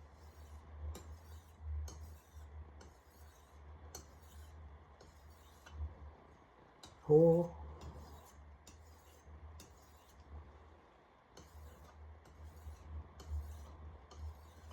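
Steel blade of a Wüsthof Classic chef knife stroked lightly across a wet whetstone to take off the burr, one scraping stroke about every second, over a low steady hum.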